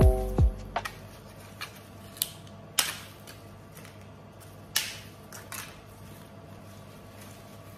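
Dried flower stems and dry leaves crackling and clicking as they are handled and sorted, a handful of separate sharp clicks with quiet between them, the loudest about three and five seconds in. The tail of background music fades out at the very start.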